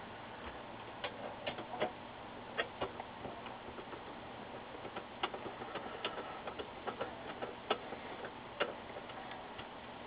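Irregular small metallic clicks and ticks, a few a second, from a screwdriver working screws into the sheet-metal back of an LCD monitor, over a steady faint hiss.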